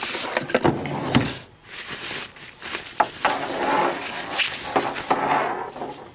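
Cardboard box scraping and a soft foam wrapping rustling as a dome camera is pulled out and unwrapped by hand, with scattered small clicks and knocks.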